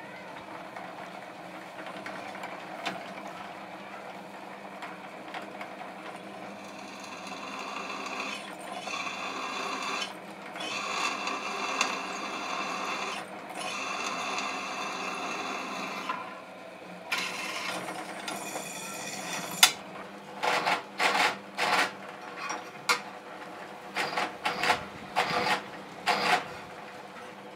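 Benchtop drill press motor running with a steady hum while its bit cuts into a steel knife blank. The cutting grows louder in the middle, and near the end it comes in a quick run of short bursts.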